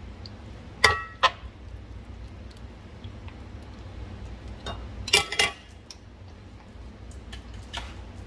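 Metal slotted spatula scraping and clanking against a cast-iron skillet while stirring ground beef simmering in taco-seasoning liquid. A few sharp clanks stand out: two about a second in, one briefly ringing, and a quick cluster about five seconds in, over a steady low hum.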